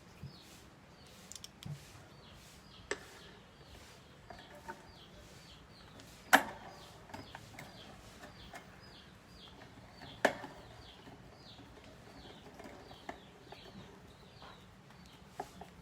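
A few sharp knocks and clicks of hand work on the desk fan's rear grill guard and its screws, the loudest about six seconds in and another about ten seconds in. Under them, birds keep up a run of short, high, falling chirps several times a second.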